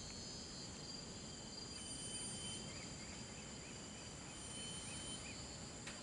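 Faint rainforest ambience: a steady high-pitched drone of insects. About two to five seconds in, a run of about ten short chirps repeats at roughly three a second.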